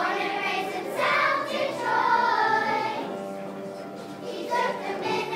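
Children's choir singing together, in sung phrases that swell and ease, softer for a moment a little past halfway.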